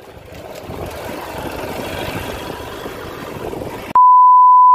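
Motorcycle running over a rough, rocky dirt track, its noise slowly growing louder. About four seconds in, a loud steady colour-bar test-tone beep cuts in abruptly.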